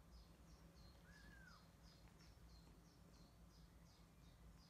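Faint bird chirping: short, falling high chirps repeated evenly, about three a second, with one brief rising-and-falling squeak about a second in, over a low steady hum.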